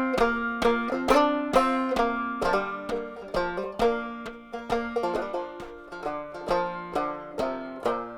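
Background music: an instrumental tune picked quickly on a plucked string instrument, with no singing.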